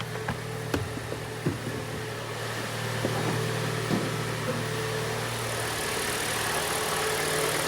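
Freshly rebuilt Hyundai G4NA 2.0-litre four-cylinder petrol engine idling steadily and evenly after its first start, with no piston knock, and a few faint clicks over the hum.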